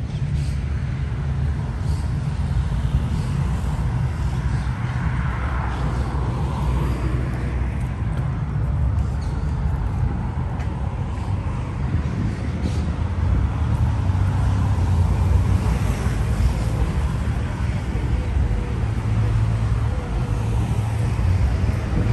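City street ambience of road traffic: a steady low rumble of passing cars, a little louder in the second half.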